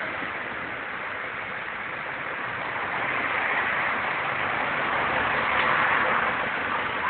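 Road traffic noise: a steady hiss of passing vehicles that swells as one goes by about halfway through and eases off near the end.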